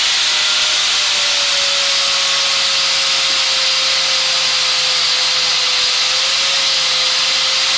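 Electric angle grinder running steadily with its disc cutting metal: a constant high hiss with a steady motor whine.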